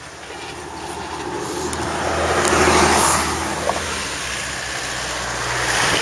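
A motor vehicle passing close by, its noise swelling to a peak about halfway through and then fading, with a low engine hum beneath; a second vehicle rises near the end.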